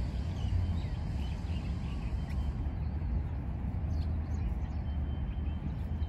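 A steady low rumble with faint, scattered chirps of small birds.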